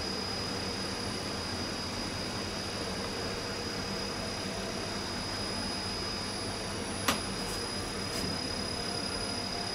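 Steady machine hum with a faint high whine running through it. About seven seconds in comes one sharp click, then two faint ticks.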